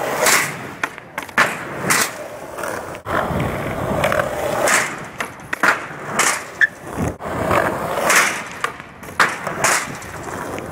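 Skateboard wheels rolling on smooth concrete, broken by repeated sharp clacks as the board is popped, lands and hits the bank ramp.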